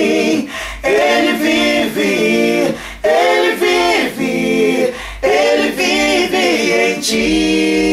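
A small backing choir of two men and a woman singing a slow gospel line in close harmony, with no instruments audible. Four phrases are split by short breaths, the last one settling into a long held chord near the end.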